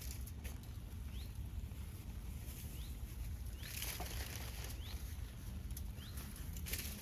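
Riverside ambience: a steady low rumble, with short faint rising bird chirps about once a second and a few brief rustling, flapping noises.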